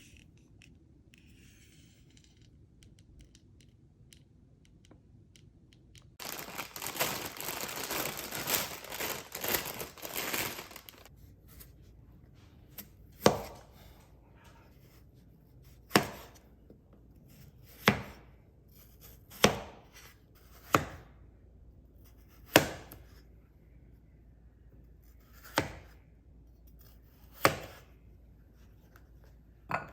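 Knife chopping on a cutting board in slow, separate cuts, about nine sharp knocks a second or two apart, after a few seconds of rustling and scraping near the start.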